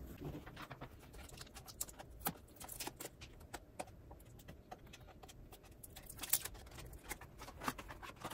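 A small white cardboard box being handled and opened by hand: scattered light taps, clicks and scrapes.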